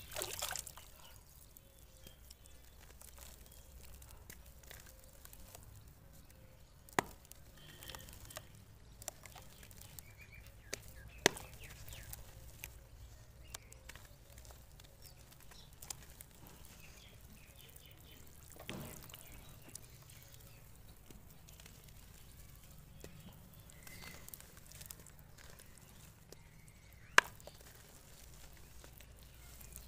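Dry dirt chunks crumbled by hand into a basin of muddy water. Quiet crunching and crackling with soft wet sloshes, broken by a few sharp clicks as lumps snap.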